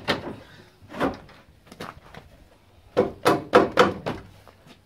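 Knocks and clunks of a car's plastic front panel being wrenched loose by hand: a couple of single knocks, then a quick run of rattling clunks about three seconds in.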